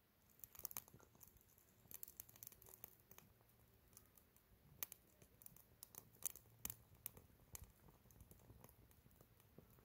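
Wood fire crackling in a small steel fire box: faint, irregular snaps and pops.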